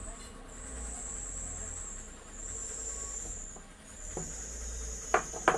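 High, steady insect trill, cricket-like, swelling and fading every second or so, over a low hum. Three short sharp clicks or knocks come about four seconds in and twice just before the end.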